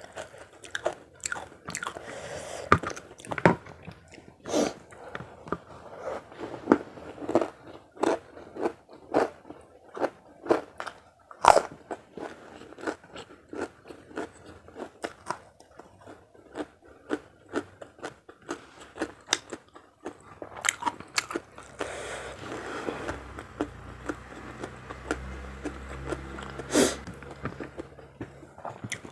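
Close-up eating sounds: a person biting and chewing karedok, crunchy raw vegetable salad, with krupuk crackers, in a run of sharp crisp crunches about one or two a second. In the last few seconds the crunches thin out into softer, steadier chewing noise.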